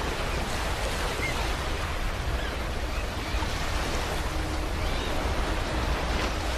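Sea waves washing onto a beach: a steady rush of surf that swells and eases slightly in level, with no single breaker standing out.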